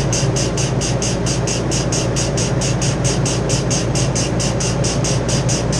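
Steady machinery hum with a high-pitched chirping squeal that pulses evenly about four times a second.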